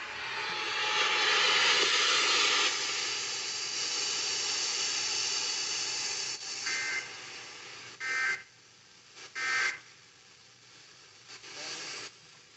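Radio static hiss for about the first six seconds, then three short bursts of EAS end-of-message data tones, a raspy two-tone warble, spaced about a second and a half apart, marking the end of an Emergency Alert System test.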